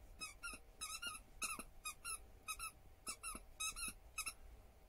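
A dog whining in short, high-pitched squeaks, about three a second, stopping shortly before the end, while begging at a plate of food.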